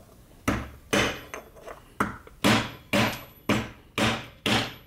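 A hammer striking a glued-together PLA 3D-printed part held on a steel workbench: about nine hard blows at roughly two a second, each with a short ring.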